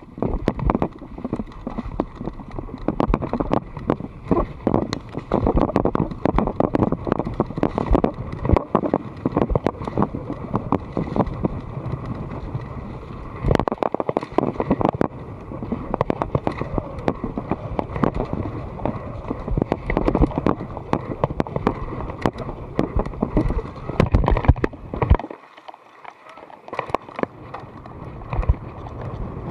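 Mountain bike clattering over a rough dirt and leaf-covered trail: tyre noise with constant knocks and rattles from the frame and chain, and wind on the microphone. It goes quieter for a couple of seconds near the end.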